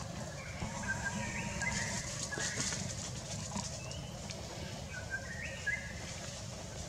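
A bird calling: short, high notes, some stepping upward, in two groups of quick calls a few seconds apart, over a steady low rumble and a faint high hiss.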